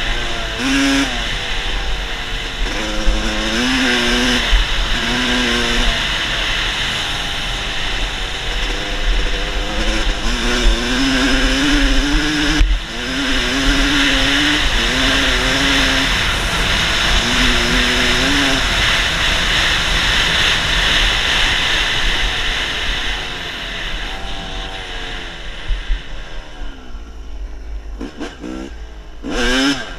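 Dirt bike engine revving hard and climbing in pitch again and again as it runs up through the gears, with wind rushing over the helmet-mounted microphone. Near the end the engine drops back to a lower, quieter run, then revs up again.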